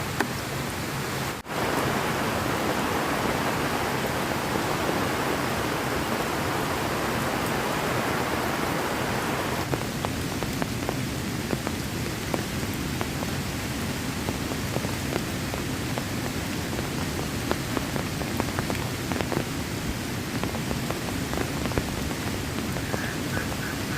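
Heavy rain falling steadily, a dense hiss dotted with the tick of individual drops. The sound drops out briefly about a second and a half in, is brighter for the next several seconds, then eases a little.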